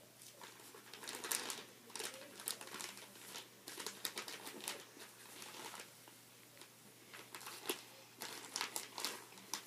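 Slime being squeezed and worked by hand, giving irregular wet crackles and small pops in uneven clusters.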